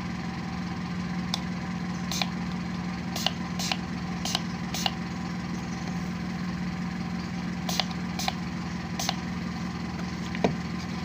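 Hand spray bottle spritzing: a string of about nine short, hissing sprays in small groups, over a steady low hum.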